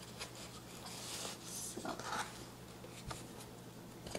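Soft rustling and rubbing of a receiving blanket being folded and tucked around a foam-board form by hand, with a couple of light taps near the end.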